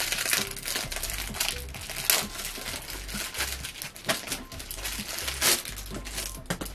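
Stocking packaging crinkling and rustling as it is opened and a green-and-white striped stocking is pulled out, with a few sharper crackles.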